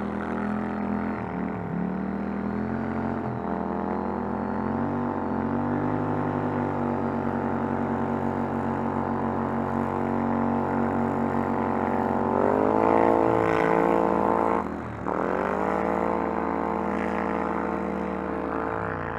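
ATV engine running under throttle while riding, its pitch holding fairly steady with a few brief dips. About 12 seconds in it climbs and gets louder, then drops sharply as the throttle is let off about 15 seconds in, and picks back up to a steady run.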